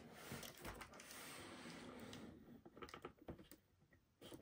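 Faint handling noise from a cardboard toy box being turned around on a table: soft rubbing and scraping with a few light taps, falling nearly quiet shortly before the end.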